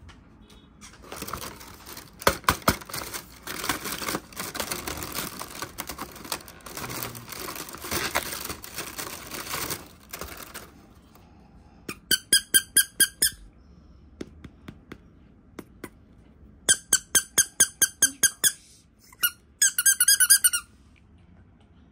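A squeaky toy is squeezed over and over in three quick runs of sharp squeaks, about six a second, in the second half. Before that comes about ten seconds of rustling handling noise with sharp clicks.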